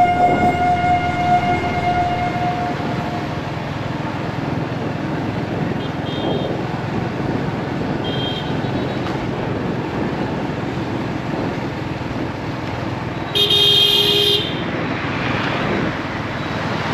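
Steady road traffic noise, with a vehicle horn honking once for about a second, about thirteen seconds in.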